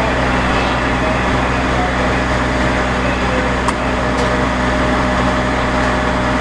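Engine running steadily with a low, even drone; a couple of faint knocks a little past halfway.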